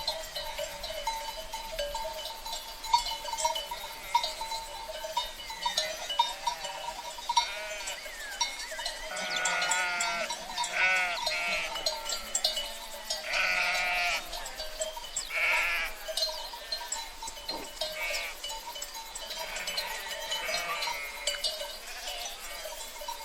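A herd of sheep bleating, several overlapping bleats clustered in the middle, over the steady jingling of bells on the flock.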